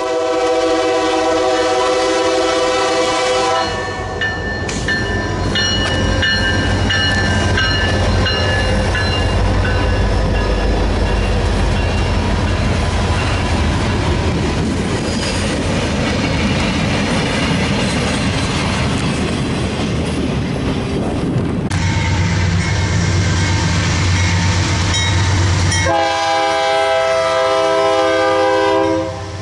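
Diesel freight locomotive horn blowing for a few seconds at the start, then a freight train passing with its diesel engines running and steel wheels rolling on the rails, with high steady ringing tones for several seconds. Near the end another horn blast of about three seconds as the Union Pacific locomotives go by.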